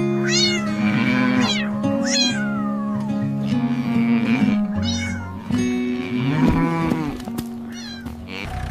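A cat meowing several times in short, rising-and-falling calls over background music with long held notes.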